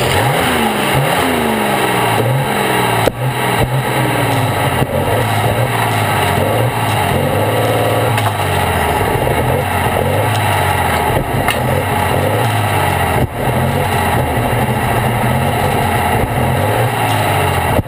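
Tractor-pulling tractor's engine heard close to its exhaust stacks, winding down from high revs over the first couple of seconds, then running loud at an uneven idle. Two brief knocks come about three and thirteen seconds in.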